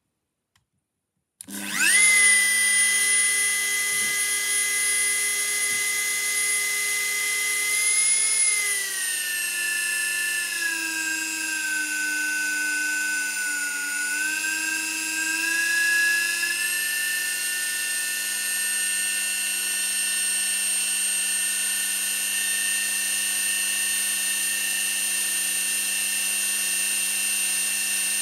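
A Dremel rotary tool, fitted with a 1.5 mm end mill, is switched on about a second and a half in: its motor spins up with a quick rising whine, then runs at a steady high whine. Its pitch sags for several seconds in the middle and then comes back up.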